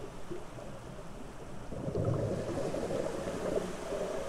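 Low, steady rumbling wash of water noise picked up by an underwater camera, with no distinct events.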